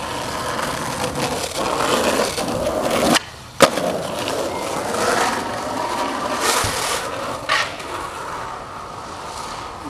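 Skateboard wheels rolling on asphalt. About three seconds in the rolling cuts out briefly, then a sharp smack of the board comes. Two shorter board clacks follow a few seconds later.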